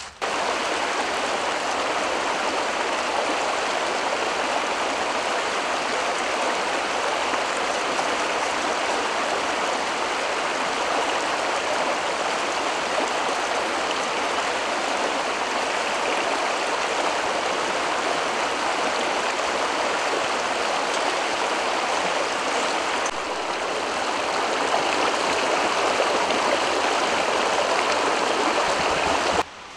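Shallow stream running over rocks and pebbles, a steady rush of water that grows slightly louder about 24 seconds in and stops suddenly near the end.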